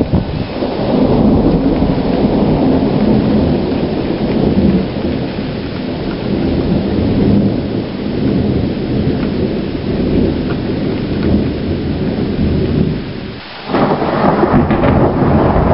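Thunder rumbling through a heavy rainstorm, with rain hissing steadily underneath. Near the end the rumble drops away for a moment, then a fresh peal of thunder starts suddenly.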